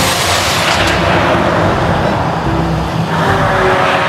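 Semi-trailer trucks driving past on a road, with engine and tyre noise. The noise swells as one truck passes close near the start and builds again as the next approaches near the end.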